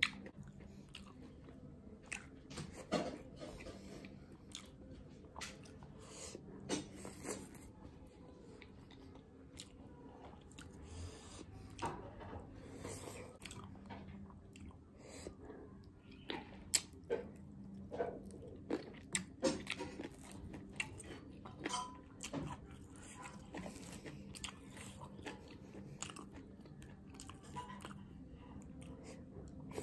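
Close-miked eating sounds: chewing, lip smacks and wet mouth clicks from eating dhido and mutton curry by hand, coming irregularly and busiest about two-thirds of the way through.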